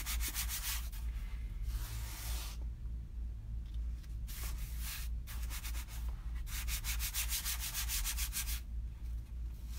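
A hand rubbing a Chalk Couture silk-screen transfer back and forth over a fuzz cloth in fast, scratchy strokes. The strokes come in spells with short pauses. This is 'fuzzing', which takes down the adhesive tack of the transfer.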